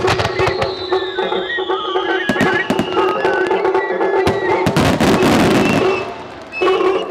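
Aerial fireworks shells bursting over accompanying music, with sharp repeated bangs. About five seconds in, a dense burst of crackling peaks, then the noise falls away.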